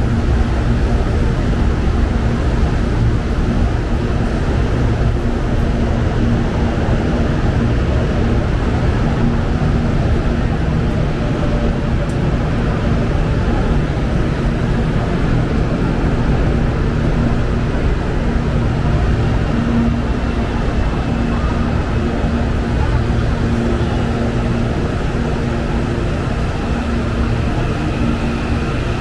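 Electric commuter train running in the station: a loud, steady rumble with a steady hum. A faint whine rises slowly in pitch in the last few seconds.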